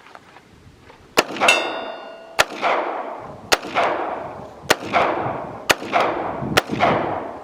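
Small handgun fired six times, roughly one shot a second, each report trailing off in a long echo. A steel target rings briefly after the first shot.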